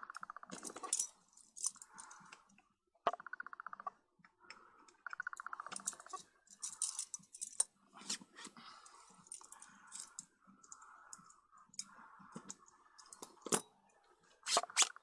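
Small parts of a Vivitar Series 1 70-210 mm zoom lens clicking and tapping as they are handled and fitted back together by hand, with several short runs of rapid fine ticking. The loudest clicks come about 13 seconds in and near the end.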